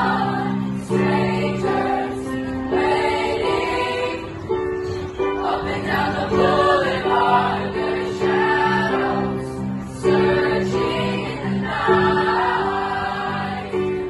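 Junior high school choir of mixed voices singing a song, several sustained notes held together and changing together, accompanied by an electric keyboard.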